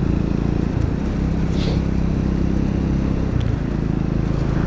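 Motorcycle engine running under way, a steady engine note over wind noise, with the pitch shifting about a second in and again just past three seconds.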